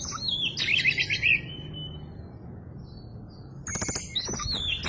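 Oriental magpie-robin (kacer) singing a rapid string of varied chirps and whistles. The song breaks off for about two seconds in the middle, then starts again near the end.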